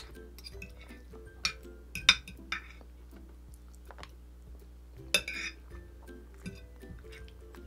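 Metal spoon and fork clinking and scraping against a plate, several sharp clinks with the loudest about two seconds in and again about five seconds in, over quiet background music.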